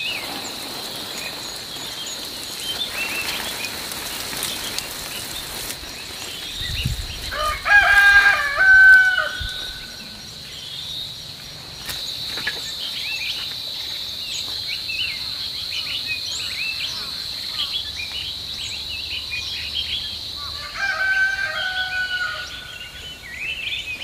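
A rooster crows twice, about eight seconds in and again near the end, each crow ending in a held note, over a steady high-pitched insect drone with small birds chirping.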